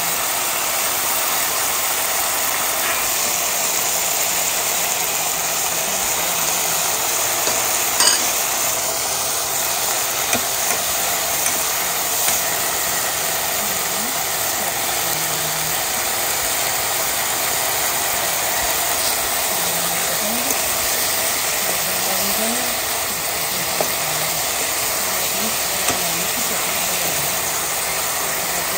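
Dried red chillies, garlic and cumin seeds with curry leaves sizzling steadily in hot oil in a nonstick pan, stirred with a spatula, with a few sharp taps of the spatula against the pan, the clearest about 8 seconds in.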